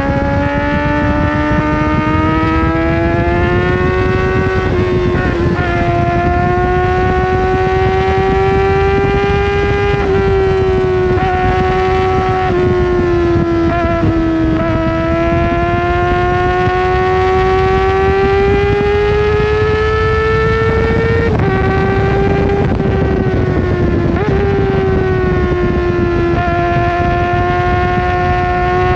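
Kawasaki ZX-4RR inline-four with a full aftermarket exhaust, revving high under hard riding. Its pitch climbs and falls steadily, with sudden steps at several points as the rider shifts gear, over a steady rush of wind and road noise.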